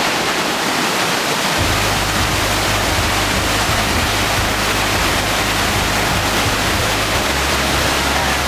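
Waterfall pouring in a steady, loud rush of falling water, with a low rumble joining about a second and a half in.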